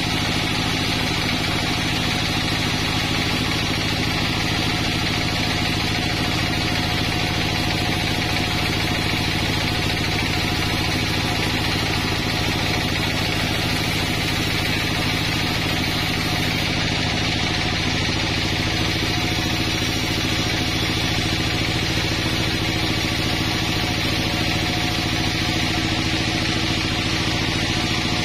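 Sawmill band saw running steadily and ripping a pine beam into boards: a constant, even machine hum from the saw and its drive, with no changes in pitch or level.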